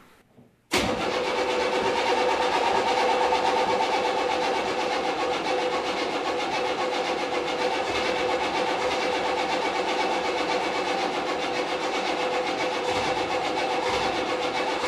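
Starter cranking the 6.2-litre diesel V8 of a 1984 Chevrolet CUCV M1028 pickup on a first start attempt after years of sitting, turning over steadily and without catching. The sound starts suddenly about a second in and holds the same level throughout.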